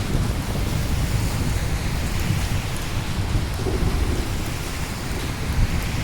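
Steady heavy rain with a low, continuous rumble of thunder rolling underneath.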